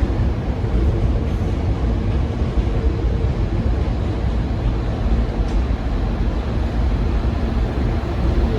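Hankyu 1000 series electric train running, a steady low rumble with a faint, even motor hum.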